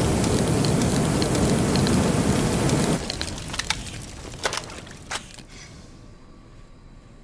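Flamethrower blast: a steady rushing roar of flame that cuts off about three seconds in, followed by a few sharp crackles and pops as it dies away to a faint hiss.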